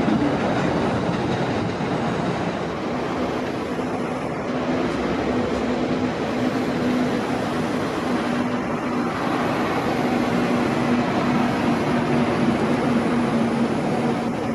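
Retired R42 subway cars hauling a garbage train along elevated track. The wheels make a steady running noise on the rails, under a steady low hum.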